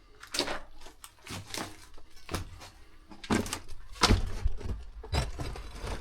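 Footsteps crunching and knocking over rubble, bricks and litter inside a concrete air raid shelter, a string of irregular knocks, the loudest about four seconds in.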